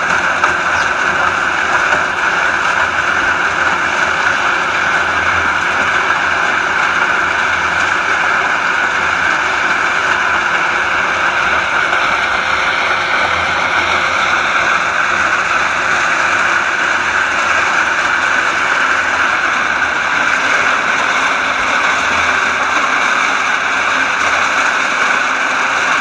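Hydraulic excavator running with a Hammer KR rotary screening bucket turning on its arm, soil and stones tumbling and rattling in the drum as it sifts. A steady, unbroken noise.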